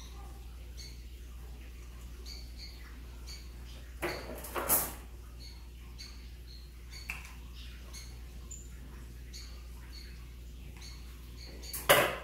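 Ficus retusa bonsai branches and leaves rustling as hands bend and wire them, in two short bursts about four seconds in and again near the end. Underneath are a steady low hum and many faint, short high chirps.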